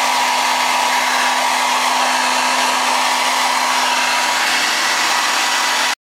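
T3 Featherweight Gold ionic hair dryer running: a steady rush of blown air with an even motor whine.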